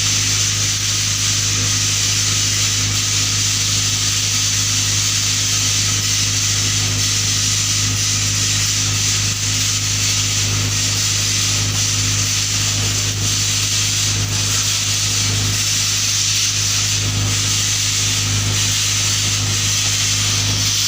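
Steady buzzing hiss of a TIG welding arc on pipe: a constant low hum under a bright hiss, running unbroken.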